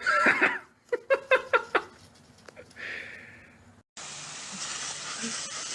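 A small dog barking: a loud call, then a quick run of about five short, high yaps. About four seconds in it cuts to a steady rushing noise.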